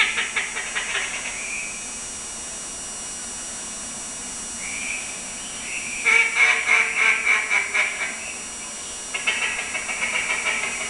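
Ducks quacking in fast runs of calls, loudest from about six to eight seconds in, with a shorter run at the start and another near the end.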